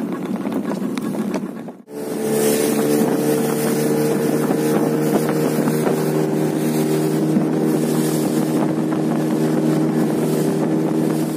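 Boat engine running at a steady pitch, with wind noise on the microphone. The sound breaks off for a moment about two seconds in, then runs steadily again until it cuts off sharply at the end.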